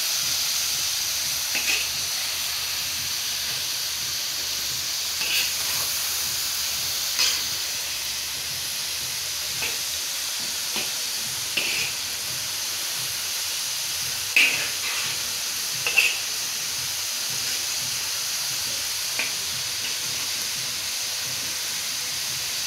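Sliced potatoes deep-frying in hot oil in a large black wok, a steady hiss of bubbling oil. Several brief, sharper clinks and scrapes come through it as a metal skimmer stirs the potatoes against the pan.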